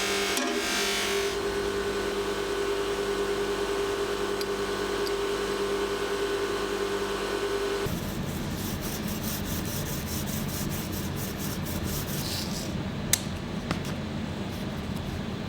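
Hand and tool work on a metal vise during its restoration. A steady hum cuts off about eight seconds in. Rapid rubbing strokes follow, about five a second, and two sharp clicks come near the end.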